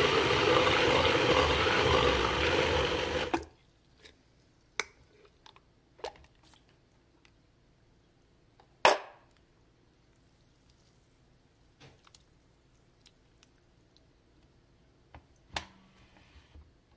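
Countertop blender running, pulping torn paper in water, then cutting off abruptly about three seconds in. After that, a few scattered clicks and knocks of the plastic lid coming off and the glass jar being handled, the loudest about nine seconds in.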